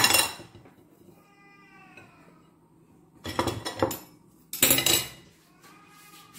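Metal cutlery clinking and scraping against dishes in three short bursts: one at the start and two a little past the middle. A faint, drawn-out high-pitched call sounds twice in the quiet between the bursts.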